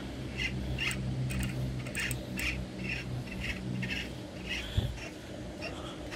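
A small bird chirping over and over, short high chirps about twice a second, over a steady low hum.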